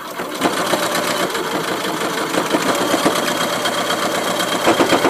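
Electric sewing machine running, its needle stitching rapidly and steadily while bar tacking the fabric; near the end the stitching slows into more distinct strokes.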